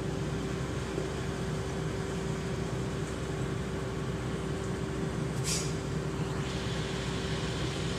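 Diesel engine of a Hyundai D8AY dump truck running steadily as the truck creeps forward, a constant low drone. A short hiss comes about five and a half seconds in.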